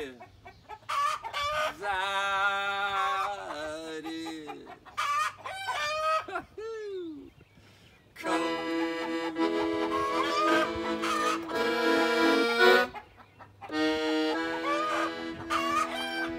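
Chickens calling with bending, arching squawks for the first several seconds. Then a piano accordion plays a zydeco tune in steady chords from about eight seconds in, breaking off briefly near the end before starting again.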